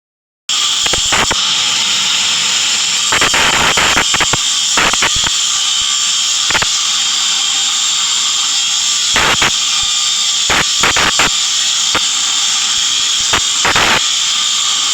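Electric welding arc hissing steadily, with irregular sharp crackles and pops of spatter.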